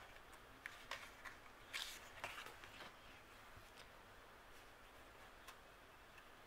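Faint rustling and light ticks of stiff sticker-book pages being handled and turned over, in the first two and a half seconds.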